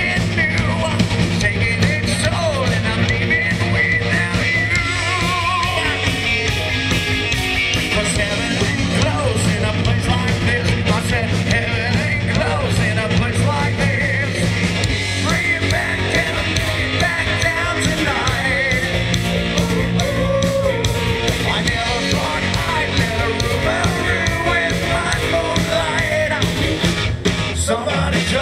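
A rock song with a singer over a steady drum beat and bass.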